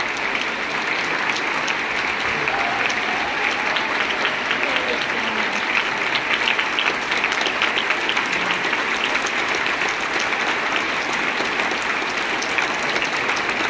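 Large theatre audience applauding steadily in a sustained ovation, with a few voices calling out in the first seconds.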